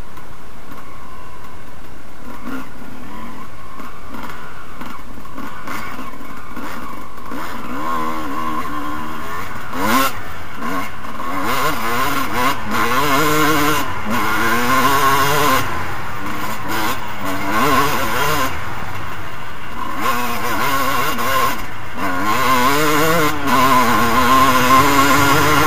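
Suzuki RM250 two-stroke motocross bike heard from on board while riding across rough grass. The engine is quieter for the first several seconds, then revs up and down again and again. There is a single sharp knock about ten seconds in.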